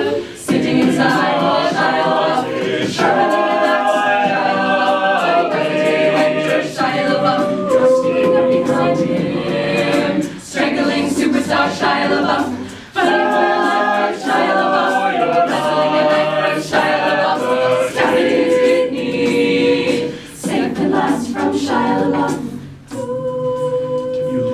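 A cappella choir of mixed voices singing a passage in harmony, with sharp percussive clicks throughout.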